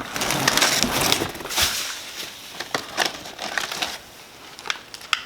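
Packaging rustling and crinkling as tools are pulled out and handled, loudest in the first second or so, with scattered sharp clicks and knocks of small items.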